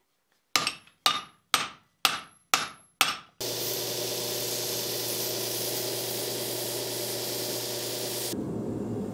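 Six hammer blows on red-hot steel at the anvil, about two a second, each with a short ring. Then a belt grinder runs steadily with a low motor hum and a hissing grind as the forged claw-hammer head is held to the belt; the high grinding hiss drops out near the end.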